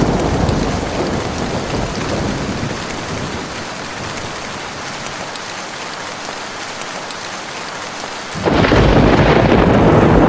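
Thunderstorm with steady rain: a low thunder rumble fades over the first few seconds into the hiss of falling rain, then a sudden loud rumble breaks in about eight seconds in and carries on.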